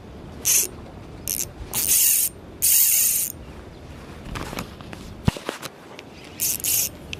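Spinning reel's drag buzzing in five short, high-pitched bursts as a hooked fish pulls line off, the longest lasting under a second, with a sharp click about five seconds in.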